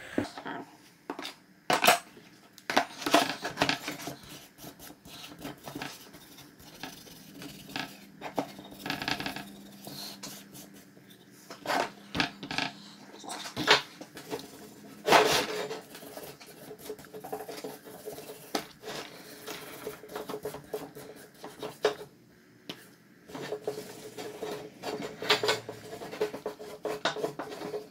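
Wet metal vise parts being scrubbed with an abrasive scratch pad to loosen the dark gray scale left by an Evaporust rust-removal soak, with irregular clinks and knocks as the parts are handled against each other and the plastic tub.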